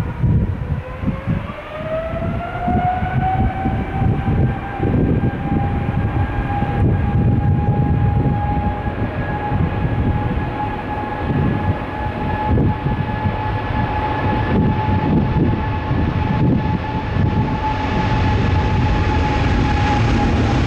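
Jet airliner's engines spooling up: a whine that rises in pitch over the first couple of seconds, then holds steady at high thrust over a rough low rumble.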